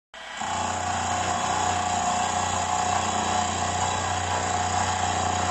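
Milling machine running with its end mill cutting across the face of an aluminium casting: a steady machine whine with a low hum that comes in suddenly at the start and holds level.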